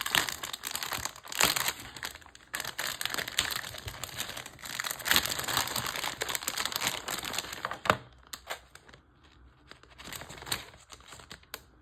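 Parts packaging being pulled open by hand: a dense crackle for about eight seconds, then a few scattered crackles near the end.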